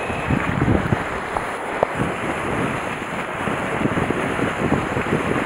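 Wind buffeting the microphone over waves washing and splashing against the concrete tetrapods of a breakwater, a steady rushing with uneven low gusts.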